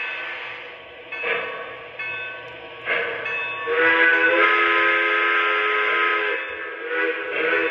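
Lionel Legacy onboard sound system of an O scale Pennsylvania Railroad T1 Duplex model steam locomotive running: a few separate steam chuffs, then one long steam whistle blast starting about four seconds in and lasting about two and a half seconds.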